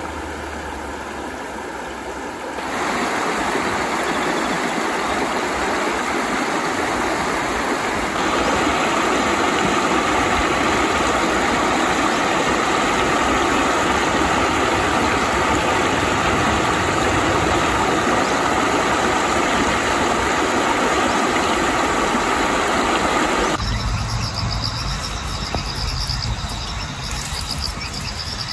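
Shallow rocky stream running over stones: a steady rush of water that grows louder a few seconds in and again about eight seconds in. Near the end the water gives way to insects trilling high and a low rumble.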